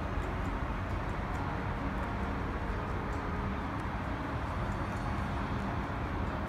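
Steady low rumble and hiss of outdoor urban background noise beside a light-railway line, with a few faint ticks and no distinct event.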